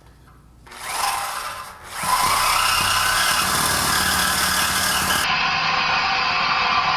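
Milwaukee Sawzall reciprocating saw cutting through the stock exhaust pipe. It gives a short burst about a second in, then runs steadily from about two seconds.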